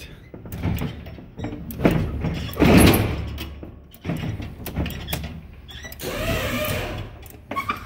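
Intermittent mechanical noise from a Crown electric forklift as its control lever is worked: separate noisy bursts, the loudest about three seconds in, and another near the end with a wavering pitch.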